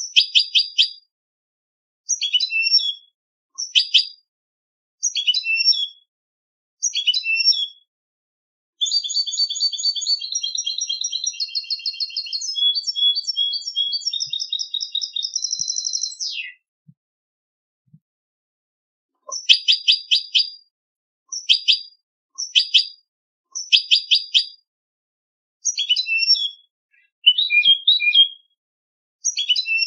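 European goldfinch song: short bright twittering phrases every second or two, then a long rapid trill of about seven seconds near the middle. After a pause of a few seconds, the short phrases resume against a dead-quiet background.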